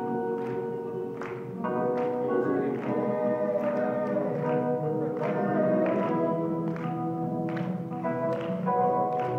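Acoustic guitar playing a chord accompaniment, strummed in a steady rhythm with the chords ringing between strokes.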